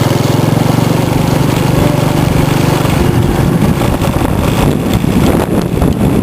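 A small engine running steadily with fast, even firing pulses. The sound turns rougher and noisier in the second half.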